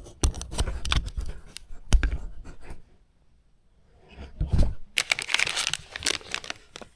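Clicks and knocks of small parts being handled, then after a short pause about two seconds of crinkling and tearing as packaging is torn open.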